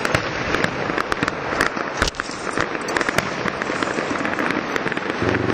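Fireworks crackling and popping in quick succession, with one louder bang about two seconds in.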